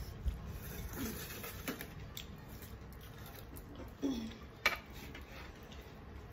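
Quiet hand-eating at a table, with a few short clicks and clinks of a metal spoon against steel bowls and plates; the sharpest clink comes a little under five seconds in.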